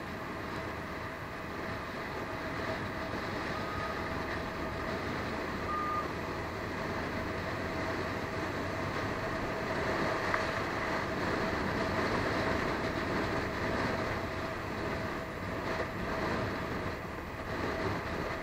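Suzuki GZ150's single-cylinder four-stroke engine running steadily at road speed, mixed with constant wind and road noise.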